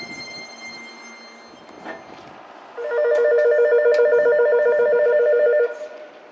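Electric bell ringing rapidly on two close pitches for about three seconds, then cutting off abruptly, as a railway station bell does at a train's departure.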